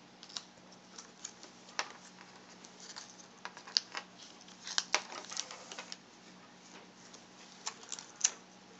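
Small, irregular clicks and taps of plastic and metal as the video cable connector is handled and pushed onto the back of a laptop LCD panel, over a faint steady hum.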